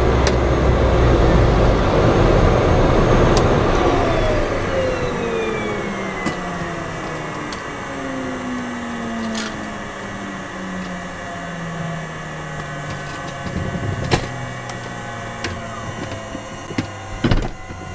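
Cessna Grand Caravan's Pratt & Whitney PT6A turboprop engine shutting down: the turbine whine and propeller drone fall steadily in pitch as it spools down. A few sharp clicks are heard along the way.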